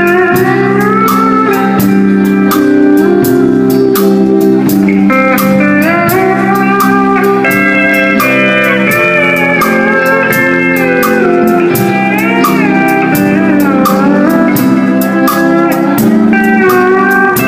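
Emmons pedal steel guitar playing melody lines in a country band, its notes sliding and bending between chords, over a steady beat of drum ticks.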